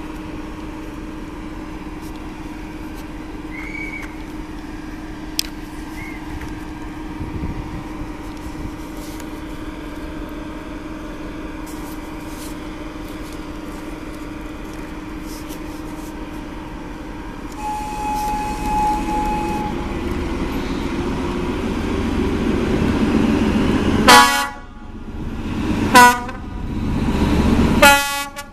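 Czech Railways class 754 diesel-electric locomotive with a steady low hum, then its engine growing louder as it pulls a passenger train toward the listener. Near the end it sounds three short, loud horn blasts about two seconds apart.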